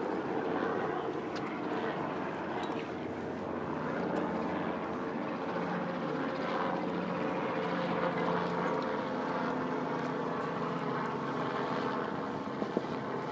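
Steady engine drone with several held tones, like a passing aircraft or motor boat, over outdoor background noise, with a single sharp click near the end.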